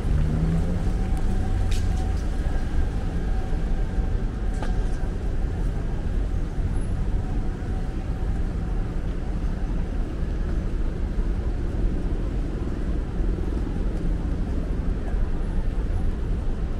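City street traffic: a steady low rumble of passing cars and engines, with a couple of short sharp clicks in the first few seconds.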